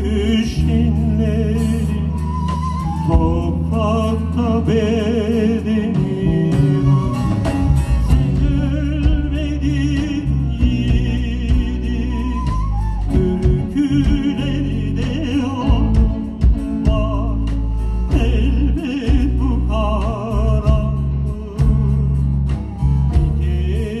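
Live folk song: a man singing with a long-necked bağlama (saz), backed by electric bass and a drum kit.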